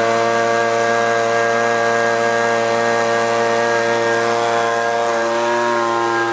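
Echo handheld leaf blower's two-stroke engine running steadily at high speed, holding its revs without bogging down. Its pitch shifts slightly about five and a half seconds in.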